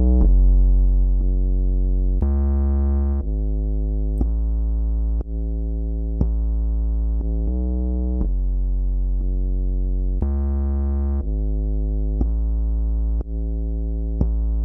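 Synth bass line of sustained notes, a new note about every second, played through a hard-set compressor with high output gain so every note sits at almost the same loudness. Some notes start with a brief peak that the compressor's 2 ms attack is too slow to catch.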